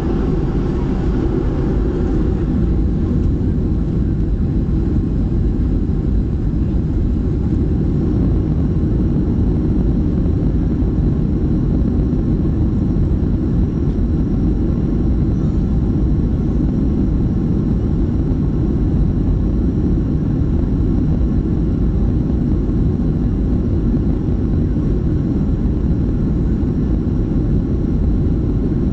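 Cabin noise of a Boeing 737-300 rolling on the ground: a steady, deep rumble from its CFM56 engines and the wheels, heard from inside the cabin.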